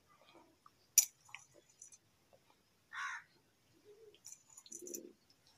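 Faint, sparse small clicks and taps of a toddler handling a small stainless steel bowl while eating. There is a sharp click about a second in and a quick run of light clicks near the end, with a short breathy sound in the middle.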